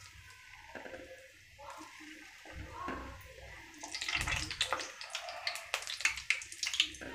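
Gulab jamun dough balls frying in hot oil, bubbling and crackling. The sizzle is light at first and grows to a dense crackle from about four seconds in, with a couple of low bumps before it.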